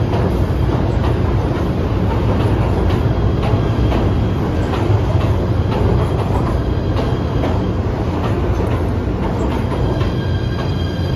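Kawasaki PA5 PATH subway cars rolling into the station: a loud, steady rumble with wheels clacking over rail joints every half second to a second. Near the end, high whining tones come in as the train slows to stop.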